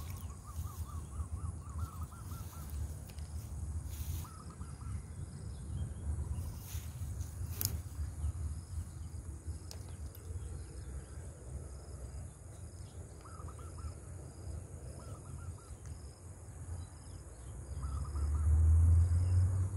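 Riverside ambience: a bird calling in short bursts of quickly repeated notes every few seconds, over a steady high insect drone and a low rumble that swells near the end.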